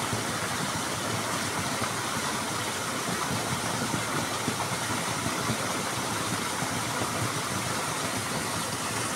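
A small waterfall pouring down a brick wall and splashing into a pool: a steady, even rush of water.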